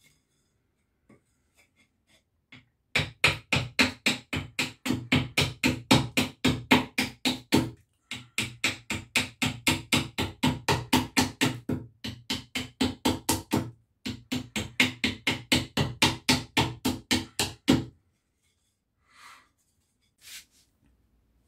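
Rapid light hatchet chops into a hardwood wedge blank resting on a wooden chopping block, about five strokes a second, each a sharp knock with a short wooden ring. The chops come in three runs with brief pauses, then a few scattered knocks. This is hewing the wedge thinner.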